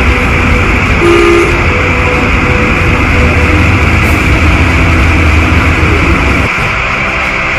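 Torrent of floodwater rushing, a loud steady noise with a deep rumble underneath; the rumble drops away about six and a half seconds in.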